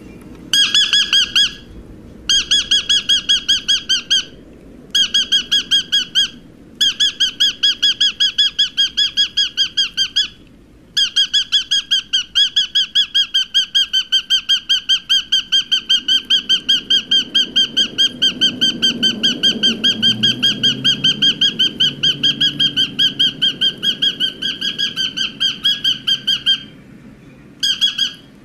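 Rosy-faced lovebird chirping in fast, even runs of high chirps, many a second. The runs come in bursts of a second or two with short breaks, then one long unbroken run through most of the second half, and a last short burst near the end.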